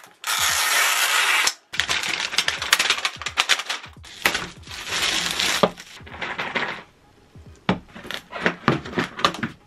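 Thin plastic wrapping film crinkling and tearing as it is pulled off a large plastic toy egg, with a steady crackle at first and then many sharp clicks. Near the end, sharp cracks as a panel of the egg's plastic shell is broken open.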